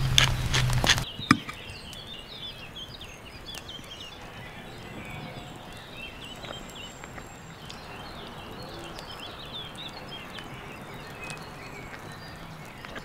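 Quiet outdoor background with many small birds chirping faintly in quick, short calls. In the first second a loud rapid clattering over a low hum cuts off abruptly.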